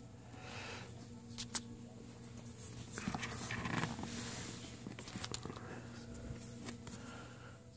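Faint handling noise: scattered light clicks and rustles over a steady low hum.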